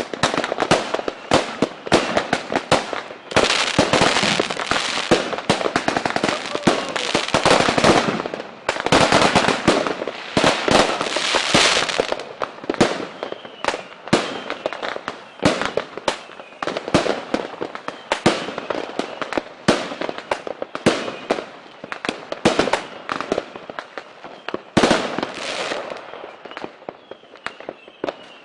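Aerial fireworks bursting: a continuous run of sharp bangs and crackling. It thickens into two long stretches of rapid crackle in the first half, then thins to separate bangs with a few faint whistles.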